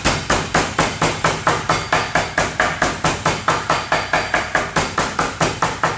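A mallet pounding a piece of beef steak thin inside a plastic bag on a wooden cutting board: rapid, even blows, about five a second.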